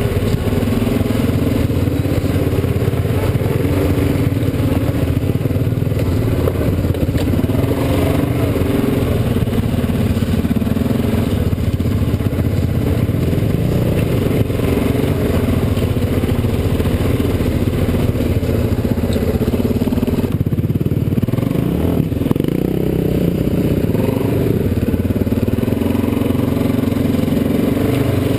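ATV (quad) engine running as it rides a rough dirt trail, its pitch rising and falling with the throttle; about twenty seconds in it eases off briefly, then picks up again.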